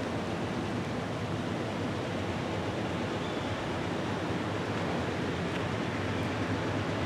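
Steady, surf-like rumble of a distant freight train approaching, led by a Norfolk Southern GE AC44C6M diesel-electric locomotive, growing slightly louder near the end.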